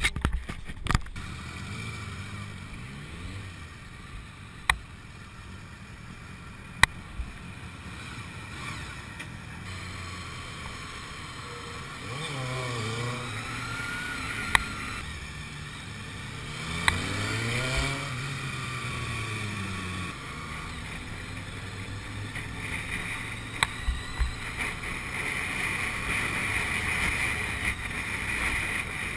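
Motorcycle riding noise: the engine runs under wind and road rush, and twice near the middle it revs up and down through the gears as the bike accelerates and slows in traffic. A few sharp knocks are scattered throughout.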